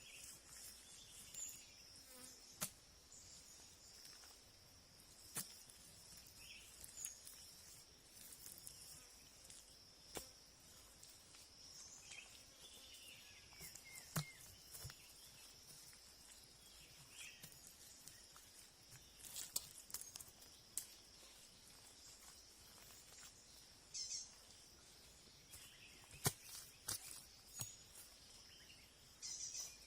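Insects chirring outdoors in a steady, faint, high-pitched drone, with scattered sharp clicks and taps over it.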